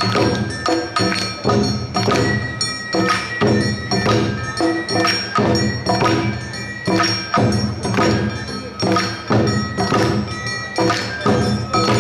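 Awa-odori festival band playing: drums and metal hand gongs striking a brisk, even beat of about two to three strokes a second, with ringing metallic tones held over it.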